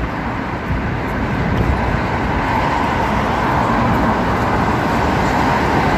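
Steady city street traffic noise from passing cars, slowly getting louder toward the end.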